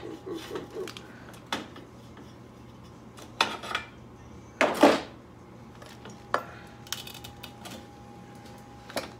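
Metal tools and motorcycle front-end parts clinking and knocking during disassembly. There are a handful of separate clanks, the loudest about halfway through.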